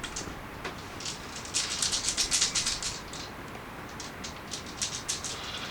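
Six-sided dice shaken and rolled, a run of rapid rattling clicks that is thickest about two seconds in, with more scattered clicks near the end.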